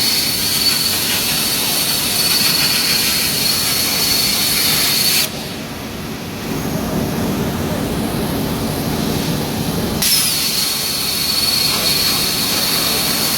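Hypertherm HPR260XD plasma torch cutting, a loud steady hiss with a high thin whine. The arc cuts off abruptly about five seconds in, leaving a quieter low rumble, and relights just as suddenly about ten seconds in.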